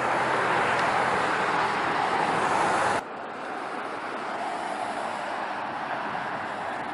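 Road traffic noise, a steady rush, loud for the first three seconds and then cutting off abruptly to a quieter rush.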